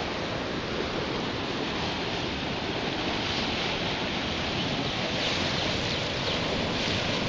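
Fast-moving flash floodwater rushing and churning in a steady wash of noise, a little louder in the second half.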